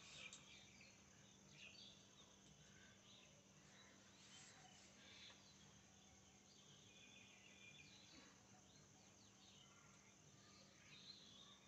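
Near silence, with faint, scattered bird chirps.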